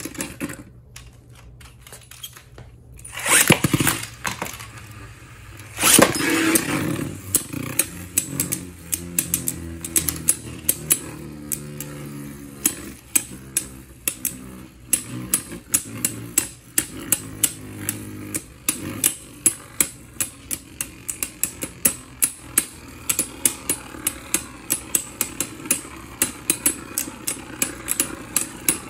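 A custom 3D-printed resin Beyblade and its opponent are launched into a plastic Beyblade stadium a few seconds in, with two loud bursts. They then spin on the stadium floor with a steady whirr, clashing in repeated sharp clicks, about two a second, through the second half.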